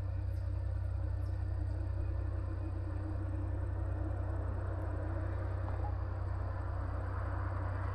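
A steady low rumble that holds even throughout, with no distinct events.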